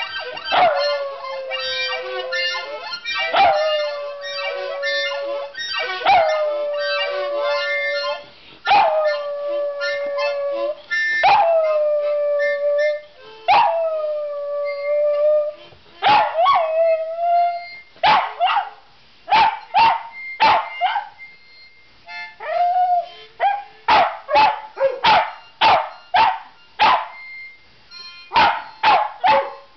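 Jack Russell terrier howling along to a harmonica: long howls that slide down in pitch, one about every two and a half seconds, over the harmonica's held chords. After about sixteen seconds the howling stops and gives way to a run of short, sharp harmonica blasts.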